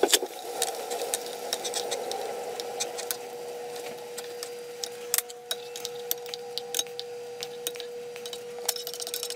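A wooden spoon scrapes and knocks against a stainless skillet and a plate as pieces of braised fish are lifted out of the sauce, in many short irregular clicks. A steady faint hum runs underneath, and a soft bubbling hiss from the simmering sauce fades over the first few seconds.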